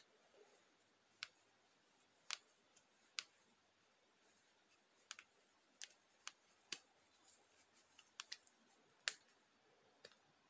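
Faint, scattered sharp clicks and taps, about a dozen spread irregularly, from fingers handling a small black plastic transmission part and its rubber seal.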